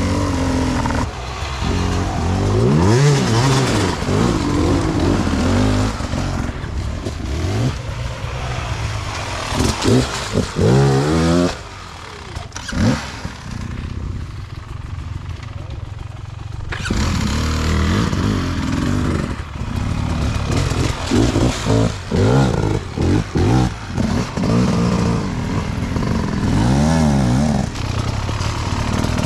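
Off-road dirt bike engines revving in repeated short bursts, the pitch rising and falling with each blip of the throttle. There is a quieter lull from about 12 to 17 seconds in.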